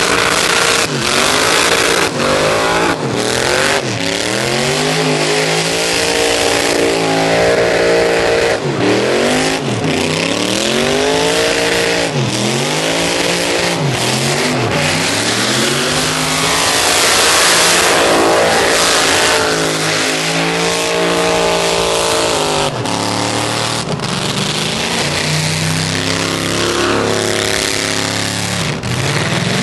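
Pickup truck doing a burnout: its engine revs up and drops back again and again, over the hiss of spinning rear tyres. For the last several seconds the engine holds a steadier note.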